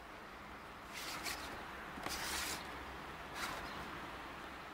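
Three short rustling, scraping noises, about a second in, around two seconds in and near three and a half seconds, over a faint steady hiss.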